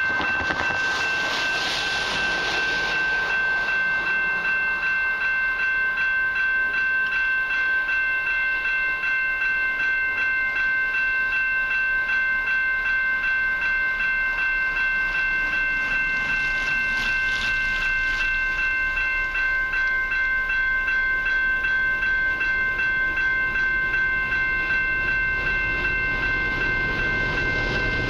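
Railway level crossing warning bell ringing steadily with rapid, even strokes, warning of an approaching train. Cars swish past on the wet road twice, about two seconds in and again near seventeen seconds.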